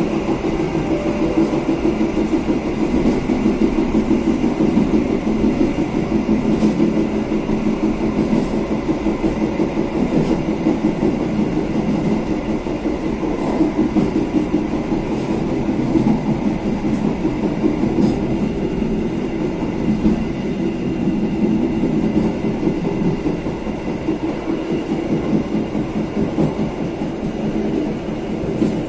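KA Wijayakusuma passenger train running at speed on straight track, heard from the rear of the last carriage: a steady rumble of wheels on rails, with faint scattered clicks.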